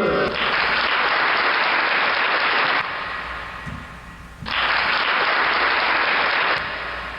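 Canned applause sound effect from a sound-effects box, played twice. Each burst of clapping lasts about two seconds and breaks off sharply into a fading tail. The second burst starts about four and a half seconds in.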